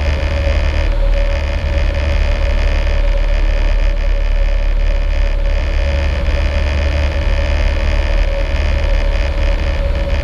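Cessna 152's four-cylinder Lycoming engine and propeller running steadily in flight, heard inside the cabin as a loud, even drone with a steady mid-pitched tone on top.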